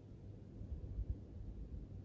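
Wind buffeting the microphone: irregular low rumbling gusts, strongest about a second in, over a quiet outdoor background.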